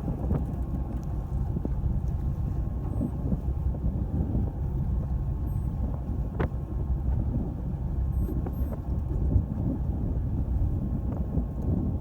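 Fishing boat's motor running steadily as a low rumble, with wind on the microphone. A single sharp click about six and a half seconds in.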